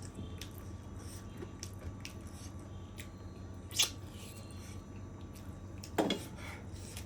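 A person eating chicken curry and rice: quiet chewing and small wet mouth clicks, with a sharp smack a little under four seconds in and a louder mouth sound at about six seconds.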